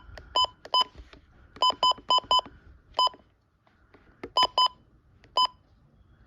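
A Midland weather alert radio beeping as its menu buttons are pressed: about ten short, identical electronic beeps at one pitch, some in quick runs of two to four, with gaps between.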